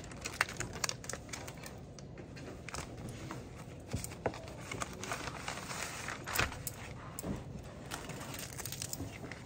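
Paper being handled, crinkling and rustling irregularly, with scattered light clicks and taps.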